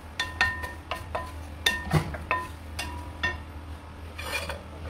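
Wooden spatula stirring chopped onions in a stainless steel pan: a quick run of knocks against the pan, each leaving a short metallic ring, then a brief scrape near the end.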